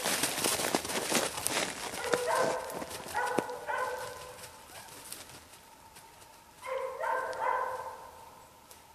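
An English setter running through snowy brush, with rapid clicking and rustling in the first few seconds. Several short pitched calls come over it, and the sound fades toward the end.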